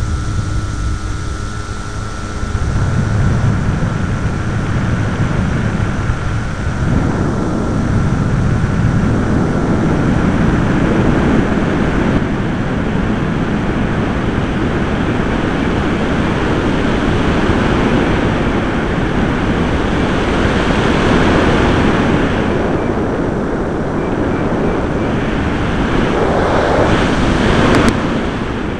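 Airflow rushing over the microphone of a small camera riding on a flying RC plane, a loud steady roar that swells a few seconds in. A thin steady whine runs under it for the first ten seconds or so, then fades out, and a few short clicks come near the end.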